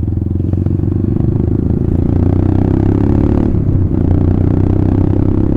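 Royal Enfield Classic 350 single-cylinder motorcycle with an aftermarket exhaust running on the road, a steady thumping exhaust note. The note shifts briefly about three and a half seconds in.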